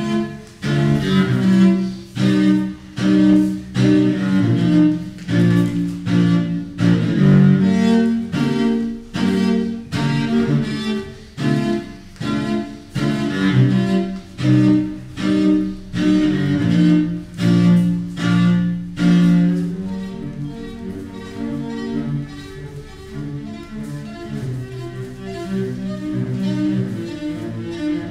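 Solo cello improvising: a rhythmic run of short, strongly attacked bowed notes in the low register, giving way about twenty seconds in to softer, more sustained playing.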